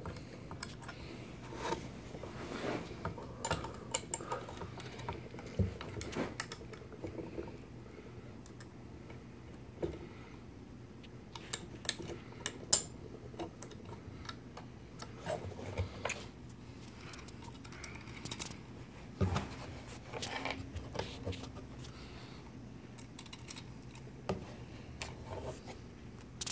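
Scattered light metallic clicks and taps of steel bolts, washers and nuts being fitted and turned by hand in the slots of a mini lathe's motor mount, over a faint steady hum.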